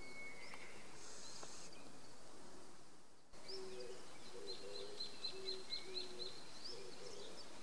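Wild birds calling: high chirps, with a quick run of about eight even notes in the second half over lower repeated notes. A high insect buzz is heard in the first part, before a short fade about three seconds in.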